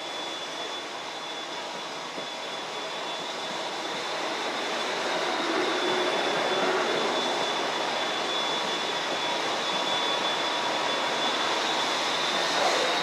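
South West Trains electric train running at a station, its rumble building from about four seconds in, with a steady high whine that dips slightly near the end.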